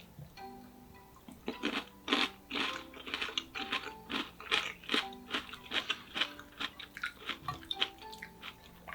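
Close-up crunching and chewing of crispy deep-fried pork cutlet, in rapid crisp bites that start about a second and a half in, over soft background music.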